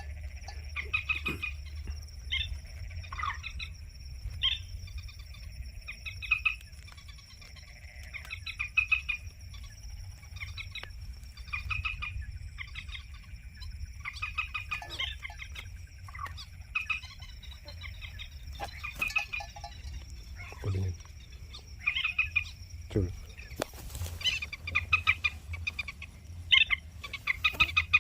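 Common moorhen clucking calls, short notes repeated every second or two, used as a lure to draw birds into the net. A steady high-pitched whine runs beneath them, and there is one sharp click near the end.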